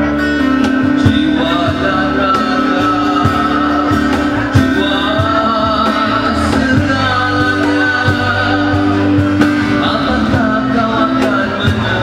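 Live band music: a man singing into a microphone over guitar and a steady drum beat.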